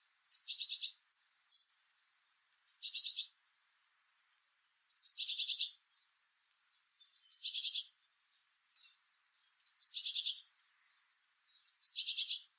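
Blue tit singing: six short phrases about two seconds apart, each a high opening note running straight into a rapid trill of about six to eight notes.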